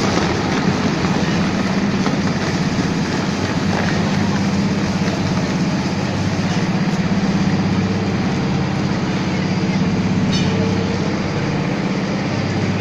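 JLSS1900 industrial shredder running under load, its drive and cutter shafts making a steady low drone as the hooked blades chew through shoe-factory scrap. There is one sharp crack about ten seconds in.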